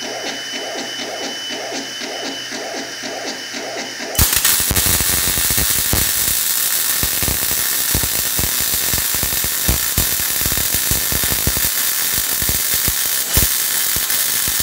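The welding robot's mechanism runs with a rhythmic whir of about three pulses a second. About four seconds in, its torch strikes a MIG welding arc, which then burns with a loud, steady crackle and sizzle as it lays a weld pass on a steel plate.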